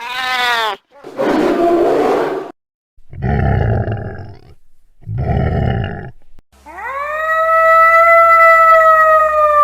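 Wolf vocalizations from a sound-effects recording: a short call falling in pitch, then three rough, noisy calls in a row. Then a long howl rises and holds steady, the loudest part.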